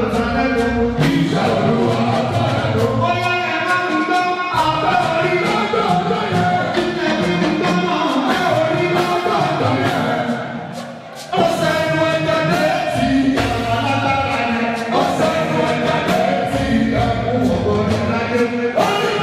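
Live Yoruba apala gospel music: a group of voices singing together over steady hand percussion, with a brief lull about ten seconds in before the full sound returns.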